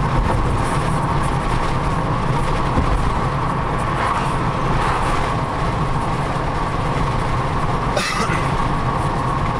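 Steady road noise from a car's tyres and engine on a concrete bridge deck, heard from inside the cabin, with a short burst of noise about eight seconds in.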